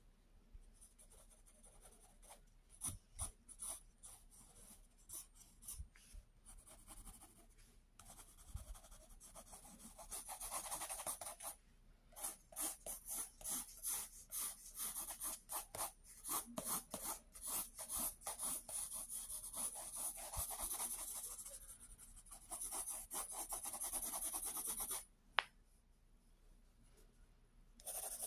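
Graphite pencil scratching on paper, in runs of quick repeated strokes and stretches of steady shading. A single sharp click a few seconds before the end, followed by a brief pause.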